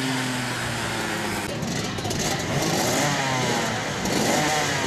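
Two-stroke racing kart engines running on track, several at once, their pitch rising and falling as they rev and pass, overlapping more from about a second and a half in.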